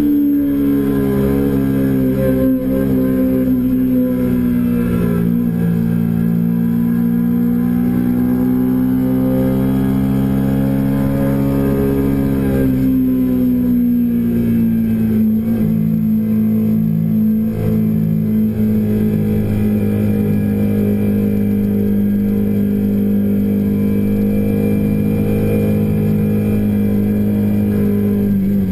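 2008 Kawasaki Ninja 250R's parallel-twin engine running hard under load at track speed, heard from on the bike. The engine note wanders gently as the throttle changes, drops about halfway through and then holds steady, with a brief jump in pitch near the end.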